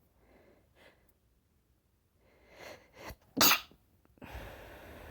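A woman sneezing once, a loud, sharp burst about three and a half seconds in. Two quick gasping inhales build up to it. It is followed by a steady breathy hiss that slowly fades.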